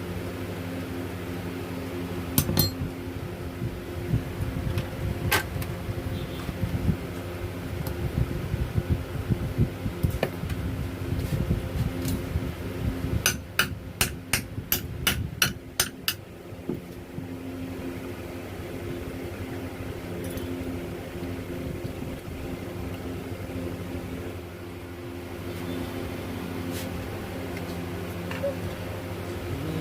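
Sharp metal taps and knocks from hand tools working on starter motor parts, scattered at first, then a quick run of about eight taps around the middle, over a steady low hum.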